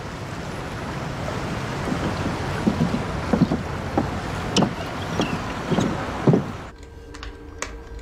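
Steady outdoor ambience of wind and water with a few faint short sounds in it. About seven seconds in it gives way abruptly to quieter indoor room tone with a few light clicks.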